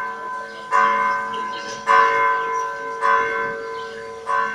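A church bell tolling, four strokes about a second and a quarter apart, each ringing on into the next.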